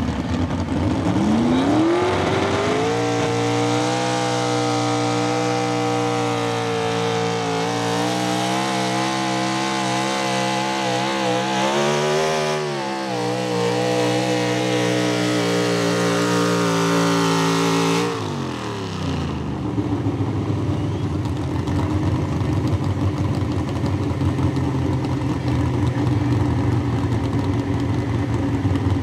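Light pro stock pulling tractor's engine revving up about a second in and held at high revs under load as it pulls the sled, its pitch wavering, then dropping off sharply about eighteen seconds in and settling to a lower steady running.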